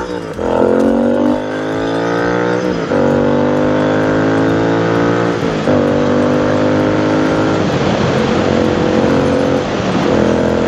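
Royal Enfield Continental GT 650 parallel-twin engine at hard acceleration, its pitch rising and falling back at three upshifts, then holding a steady pitch in the last few seconds. It breathes through free-flowing aftermarket headers with no catalytic converters and near-straight slip-on mufflers, which give it a loud, deep note.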